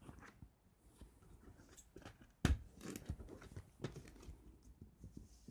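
A CD case and its booklet being handled: scattered small plastic clicks and paper rustling, with one sharper knock about two and a half seconds in.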